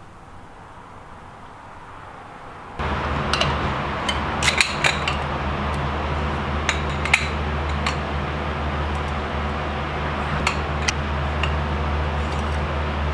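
Quiet room tone, then from about three seconds in a steady low hum with scattered light metallic clicks and clinks as a long-handled socket wrench works the lug nuts on a car wheel.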